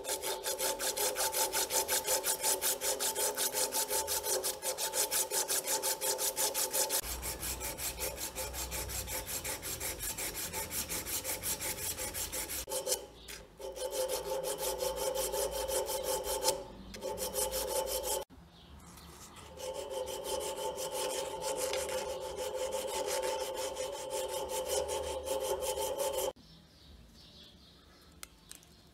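A strip of abrasive cloth is pulled quickly back and forth around a bronze rod held in a vise: a fast, even rasping with a steady ringing tone under it. It pauses briefly a few times and stops a couple of seconds before the end.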